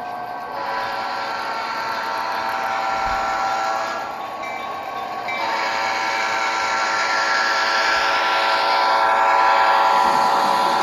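Model train sound from an ESU LokSound V5 decoder on an HO-scale layout: locomotive and rolling-stock sounds played through the model's small speaker, with several steady tones over a continuous hiss. It grows louder about five seconds in.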